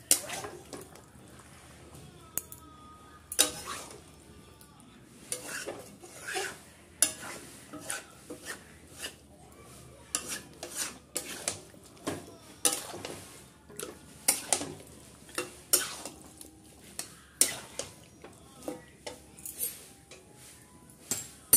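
Metal spatula scraping and clinking against a metal kadai while stirring chicken and potato pieces in a thick masala. The clinks and scrapes come irregularly, about one or two a second.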